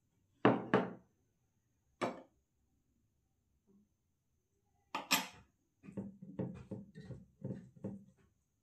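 Tableware handled at a meal: a small ceramic bowl set down on a table with two quick knocks, a single knock a moment later, and a louder clatter about five seconds in. Then a run of short, soft squelches and scrapes, about three or four a second, as rice and curry are mixed by hand on a metal plate.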